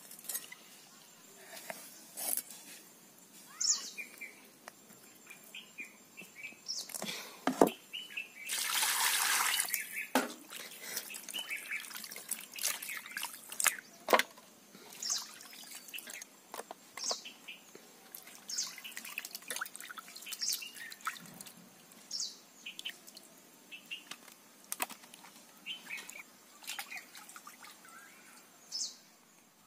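Small fresh fish being cleaned by hand against an upright iron cutting blade: scattered wet clicks, scrapes and knocks as they are worked and dropped onto a steel plate. Short bird chirps come and go throughout, and about eight and a half seconds in there is a louder rushing, splashy noise lasting about a second and a half.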